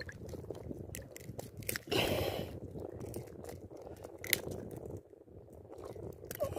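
Close handling noise of a gloved hand gripping a landed fish and working the metal jig in its mouth: scattered clicks and crunchy rubbing over a low rumble, with a brief rush of noise about two seconds in and one sharp click a little after four seconds.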